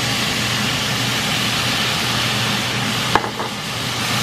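Food sizzling steadily in hot oil in a pan, with one sharp knock about three seconds in.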